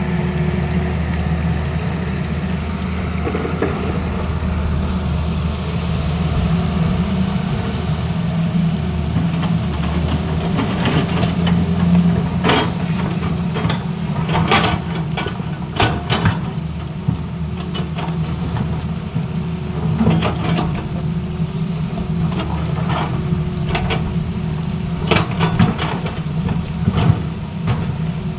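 Tata Hitachi Zaxis crawler excavator's diesel engine running steadily as it digs. From about ten seconds in, the steel bucket clanks and scrapes against rock in a series of sharp knocks.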